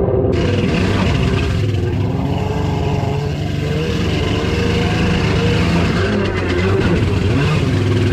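Jet ski engine running steadily at speed, with a constant rush of water spray and wind over the hull. The engine note wavers briefly a few seconds before the end.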